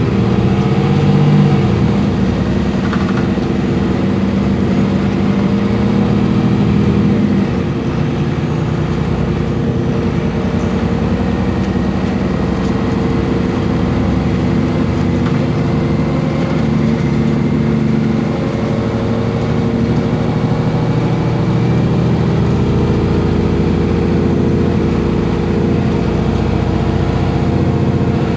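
MAN NL223 city bus's diesel engine idling steadily at a standstill, its note dropping slightly about seven seconds in.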